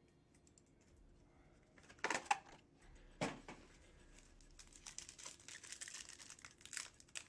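A trading-card pack's wrapper being torn open and crinkled: a couple of sharp rips about two seconds in and another a second later, then dense crackling of the wrapper being handled.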